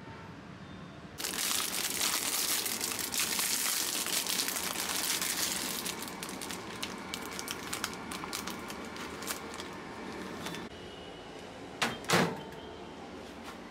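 Packaging of a Jolly Time microwave popcorn bag crinkling and rustling loudly as it is handled, easing into scattered crinkles and clicks as it is laid in the microwave. Near the end come two sharp knocks as the Whirlpool microwave's door is shut.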